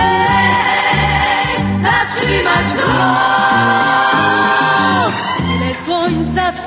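Pop song playing: long held sung notes, the second from about three to five seconds in, over a steady bass beat.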